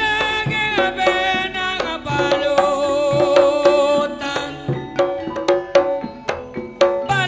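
Live East Javanese jula-juli music: hand-drum strokes under sustained, sliding melodic lines.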